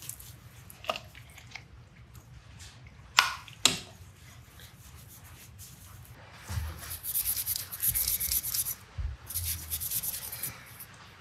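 Steel wool scrubbing a metal colander part hard and fast, a scratchy rubbing that starts about six seconds in. Before it come a few light clicks and two sharp metal taps, about three and three and a half seconds in.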